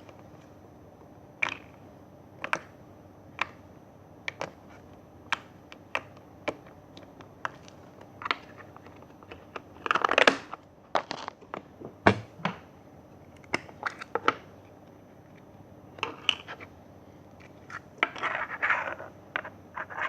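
Slime being handled by hand, giving a series of sharp clicks and pops roughly once a second, with longer crackly stretches about halfway through and near the end.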